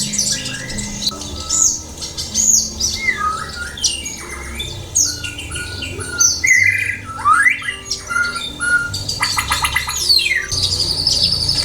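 White-rumped shama (murai batu) singing a varied song of whistled notes and rising and falling glides, with a fast run of repeated notes near the end, over soft background music of sustained low notes.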